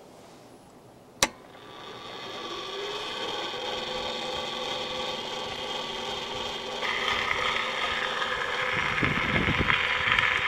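A sharp click, then an Edison Standard Model A cylinder phonograph starting up: the spring motor and gearing whir, rising in pitch as the mandrel comes up to speed, and the reproducer's surface hiss from the cylinder record grows steadily louder through the horn.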